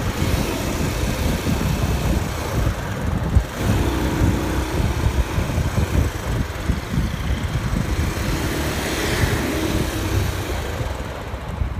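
Road noise from riding in a moving vehicle through traffic: a steady low rumble of engine and tyres with uneven low buffeting, and a faint engine note rising out of it twice.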